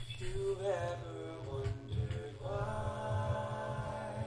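A cappella vocal harmony: one male singer multitracked into four parts. He sings a few short notes, then holds a sustained chord from a little past halfway.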